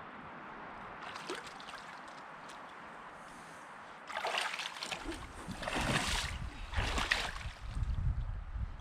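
Steady running water, then from about four seconds in a run of loud splashes and sloshes, as of a small hooked fish thrashing at the surface while it is pulled in.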